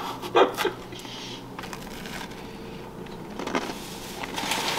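Someone biting into and chewing a freshly baked cookie, with light crinkling and small clicks and a short sharp sound about half a second in.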